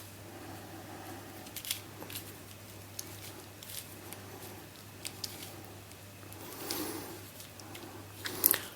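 Faint scattered clicks and clacks of small plastic keychain-size 2x2 puzzle cubes being turned and handled, over a low steady hum.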